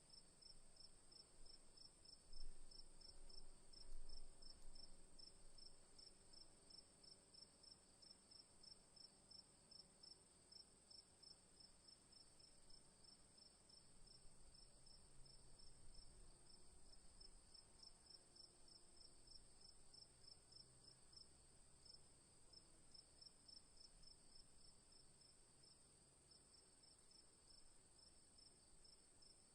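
Crickets chirping faintly: one steady high-pitched trill and, under it, a chirp repeating evenly a few times a second. Two brief low bumps stand out about two and four seconds in.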